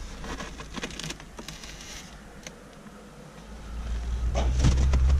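Polystyrene hive lid and box being worked loose and lifted off a nucleus hive: scattered clicks, knocks and scrapes of foam plastic. A low rumble builds and rises toward the end.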